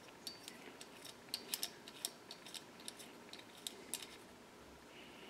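Small metal clicks and clinks, irregular and a few a second, from a bolt, nut and collar being turned by hand as a homemade puller is threaded into the needle-valve seat of a Briggs & Stratton carburetor.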